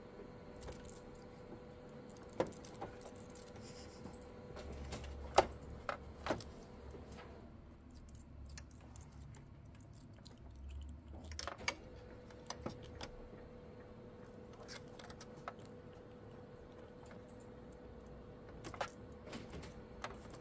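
Scattered light clicks and taps from a kitten's paws and claws on the plastic top of a printer as it bats at a dangled toy, over a faint steady hum.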